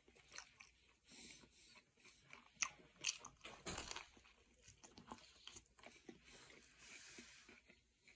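Faint mouth-close chewing of a steak wrap with crispy fried onions: irregular small crunches and wet chewing clicks.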